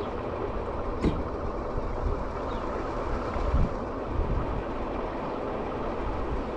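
Steady rumble of an electric scooter rolling along a paved bike path, wheels and deck running over the surface, with a sharp rattle about a second in and a few low knocks over bumps in the middle.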